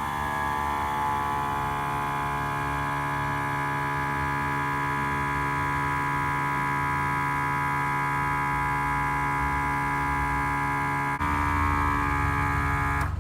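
Motorcycle air-ride suspension compressor running to pump up the air bags and raise the bike: a steady electric hum. About 11 seconds in it clicks and gets a little louder, then cuts off abruptly at the end.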